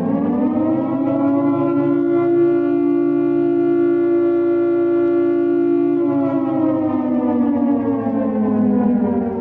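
Emergency warning siren wailing in the civil-defence style. Its pitch rises at the start, holds steady for about four seconds, then slowly falls.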